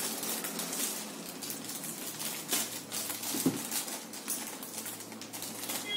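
Crinkling and rustling of a plastic anti-static bag as a motherboard is handled and unwrapped: a steady run of small dry crackles.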